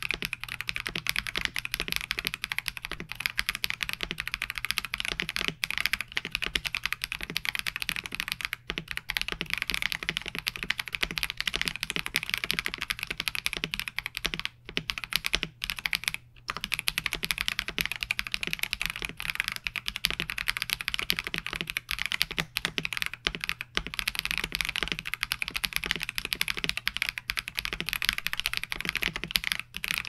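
Fast, continuous typing on a KBD67 Lite mechanical keyboard fitted with Akko CS Snow Blue Gray switches: a dense run of key clicks, broken by a few brief pauses about halfway through.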